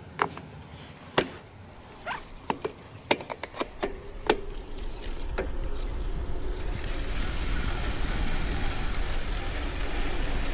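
A vintage steel bicycle rattling over rough ground, with a string of sharp clacks and knocks over the first four seconds or so. From about five seconds in, steady wind and tyre rumble takes over and grows louder as the bike picks up speed.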